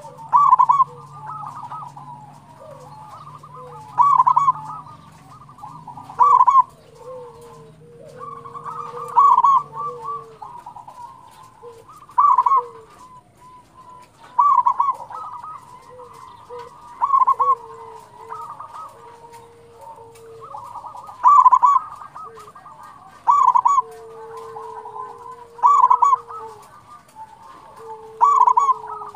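Zebra dove (perkutut) song: loud bursts of rapid, trilled cooing every two to three seconds, with softer, lower drawn-out coos between them. A faint low hum underlies the first ten seconds and then stops.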